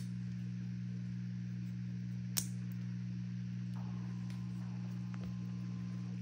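Steady low hum, with a single sharp click about two and a half seconds in as a soft chicken cat treat is snapped into pieces.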